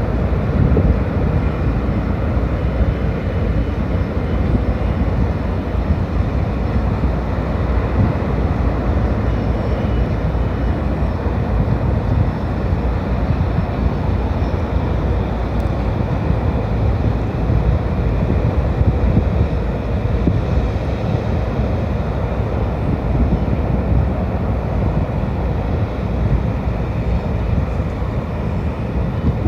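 Steady low rumble of a ferry's engines as the ship manoeuvres in port.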